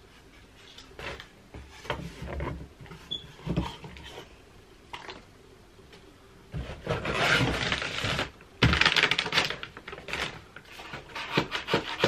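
Cardboard box and packaging being handled during an unboxing: scattered light knocks and clicks, then a loud stretch of rustling and scraping about halfway through, with a shorter burst after it and more clicks near the end.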